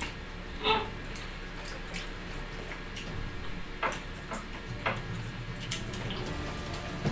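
Faint sounds of people eating: wet chewing and lip-smacking with a few soft clicks, over a low steady hum.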